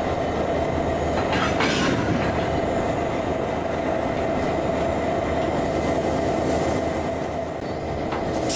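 Idling diesel locomotives: a steady engine hum with a steady whine, and a brief hiss about a second and a half in.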